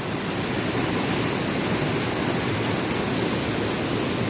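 Rushing water of a forest stream falling over rocks, a steady even roar without a break.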